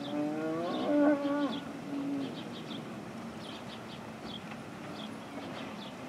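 A cow bawling once: a drawn-out moo of about two seconds whose pitch bends upward and then holds steady. Short high chirps repeat throughout.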